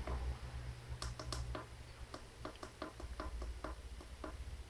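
A quick, irregular run of about a dozen light clicks, like keys or buttons being pressed, over a low steady hum.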